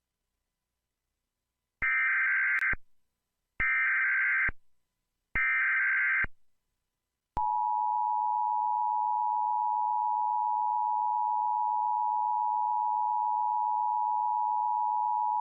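Emergency Alert System activation. About two seconds in come three short, harsh bursts of SAME digital header data, each about a second long. Then the EAS two-tone attention signal plays as one steady, shrill tone for about eight seconds.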